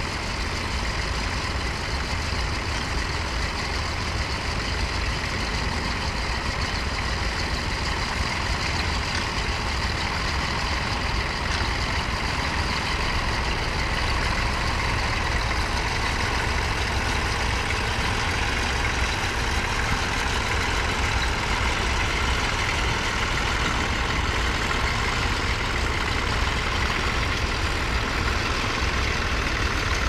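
Vintage tractor engine running steadily while ploughing, growing a little louder in the middle as it passes close.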